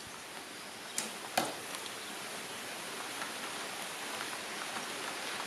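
Steady outdoor hiss with two soft clicks about a second in.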